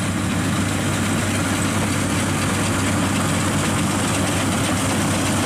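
Engine of a rice combine harvester running steadily at work: a constant low hum under an even hiss.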